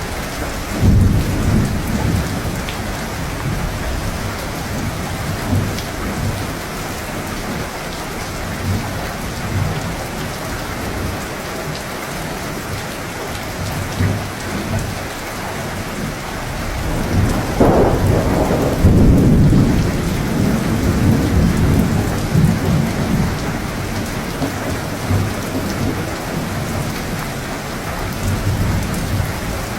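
Thunderstorm: steady rain with low rolling thunder. A rumble swells about a second in, and a louder, longer roll of thunder comes about two-thirds of the way through.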